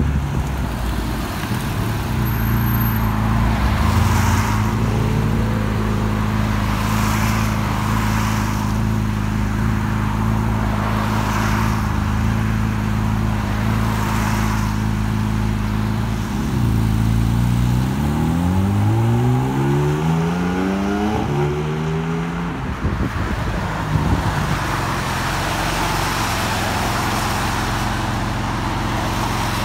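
Porsche 718 Cayman GT4 flat-six idling steadily, then revving up in several rising sweeps as it pulls away, a little past halfway through. A steady engine hum follows.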